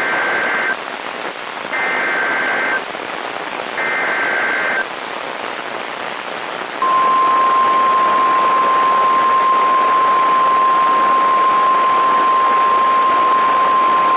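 NOAA Weather Radio alert signal over a steady hiss of radio static. Three short bursts of SAME data tones, about two seconds apart, are followed from about seven seconds in by the long steady 1050 Hz warning alarm tone. Together they announce a new severe thunderstorm warning.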